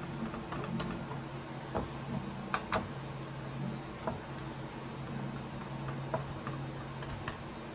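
A screwdriver turning out the small GPU pressure screws on the back of a Sapphire Pulse RX 580 graphics card, heard as scattered faint ticks and clicks with a sharper pair about two and a half seconds in. A steady low hum runs underneath.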